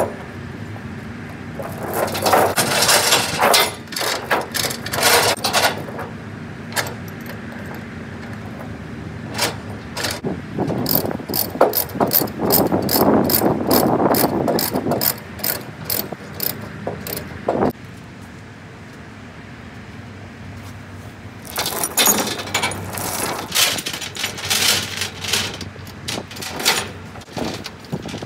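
Ratchet tie-down being cranked to secure a load on a flatbed trailer: three spells of ratcheting clicks, the longest a steady run of about three clicks a second in the middle.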